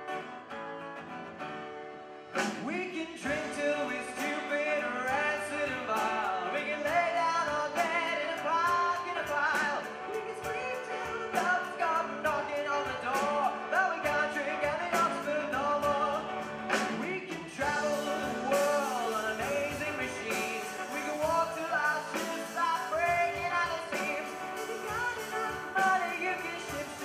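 Live band with acoustic guitar, piano accordion, double bass, keyboard and drum kit playing a song, with a lead vocal. A softer opening lasts about two seconds before the full band and the singing come in.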